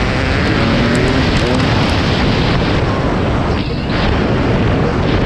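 KTM 300 XC's single-cylinder two-stroke engine running under way, its revs rising and falling, mixed with heavy wind buffeting on the camera microphone.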